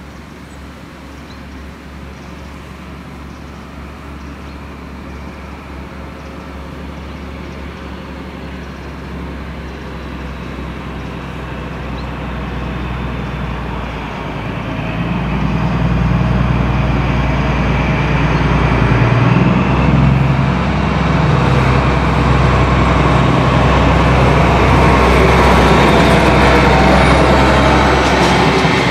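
DB class 218 diesel-hydraulic locomotive 218 256 approaching with its train, growing steadily louder. The engine's deep hum is strongest from about halfway in. Near the end, wheel and rail noise from the passing coaches builds.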